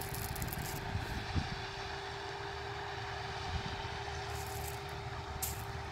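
Diesel farm machinery running steadily: a low engine rumble with a faint, steady whine over it.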